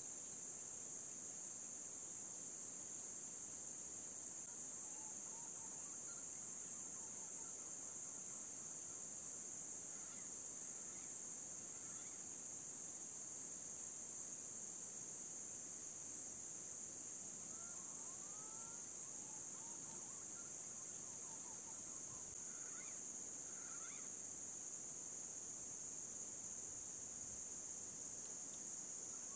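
Steady, unbroken high-pitched insect trill, a cricket- or cicada-like chorus, with a few faint whistled bird calls in the second half and near the end.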